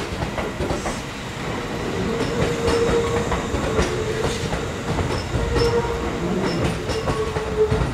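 Electric train running on rails, its wheels clacking over rail joints, with a steady whine that grows stronger about two seconds in.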